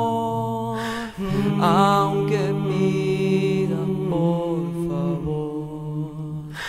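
A cappella vocal harmonies: several voices hold notes over a steady low drone, while the higher voices slide between pitches. There is a short break about a second in.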